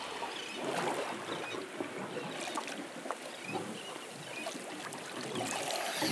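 Sea water splashing and lapping around scuba divers swimming at the surface beside a boat's stern, with bubbles breaking the surface in many small crackling ticks.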